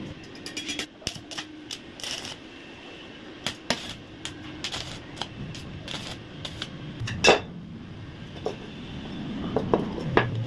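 Stick-welding arc crackling irregularly at a joint of a 1-inch square steel pipe frame, then a loud metal clank about seven seconds in and a few lighter clinks as the steel frame is moved.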